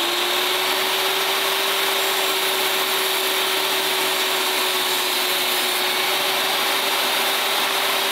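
Corded 10-inch table saw running steadily at full speed while a board is ripped along the fence with a push stick.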